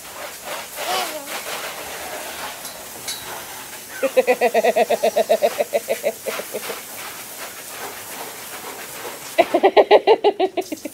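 Garden hose nozzle spraying water with a steady hiss. A voice twice breaks in with quick, rapid laughter: once about four seconds in for a couple of seconds, and again near the end.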